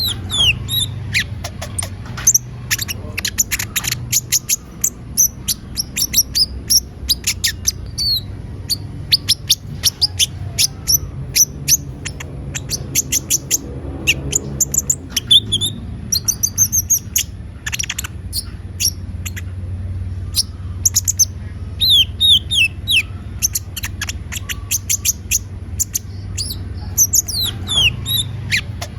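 Plain-throated sunbird (kolibri ninja) singing energetically, in fast bursts of sharp, high chirps and quick falling notes. A faint low hum runs underneath.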